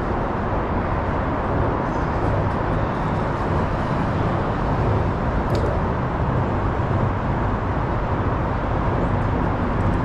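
Steady rumble of road traffic crossing the concrete bridge deck overhead, with no single car standing out.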